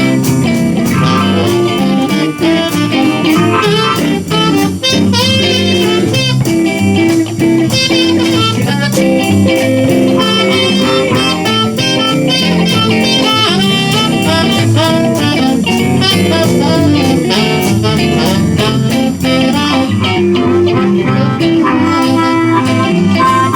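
Live blues band playing an instrumental break in a jump-blues shuffle: electric guitars, saxophone, bass guitar and drum kit, with no vocals.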